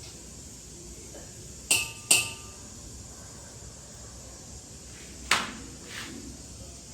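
Kitchen vessels clinking: two sharp ringing clinks in quick succession about two seconds in, another a few seconds later, then a lighter tap.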